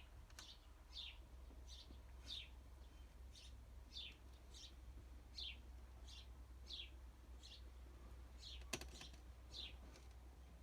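A small bird chirping over and over, short high chirps that fall in pitch, about two a second, with a faint steady low hum under them and a single sharp click about nine seconds in.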